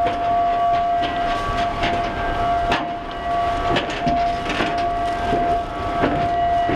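Footsteps and the rustle of protective coveralls as several people walk, with irregular sharp steps and scuffs. Under them runs a continuous steady tone with several overtones, like a machine whine or an alarm.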